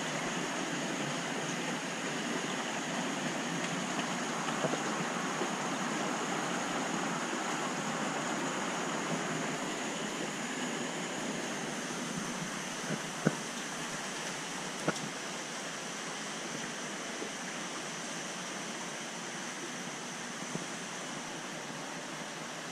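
Steady rushing of circulating water and bubbles in a large aquarium, with two sharp clicks about a second and a half apart a little past halfway.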